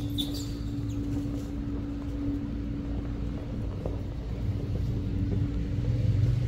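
Low, steady engine rumble with a constant hum, growing louder near the end.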